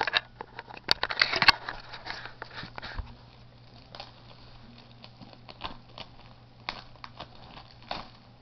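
Wrapping on a box of trading cards crinkling and tearing as the box is opened, densest in the first two seconds, followed by scattered clicks and rustles of the box being handled.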